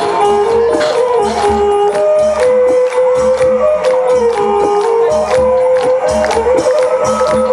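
Traditional Thai music: a melody of held notes stepping up and down over a steady low drum beat, with frequent sharp percussion strikes.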